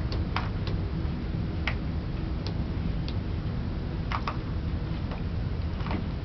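About ten sharp clicks and ticks at irregular spacing, two of them close together a little past four seconds in, over a steady low rumble.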